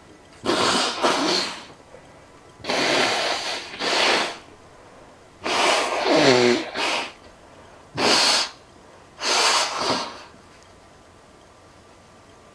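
A person sneezing and blowing their nose hard: five loud bursts of rushing air through the nose, each about a second long, one with a brief voiced cry in it.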